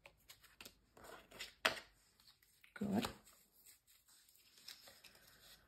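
Paper die-cut pieces and cardstock being handled on a cutting mat: light rustles and scattered taps, the sharpest a little under two seconds in.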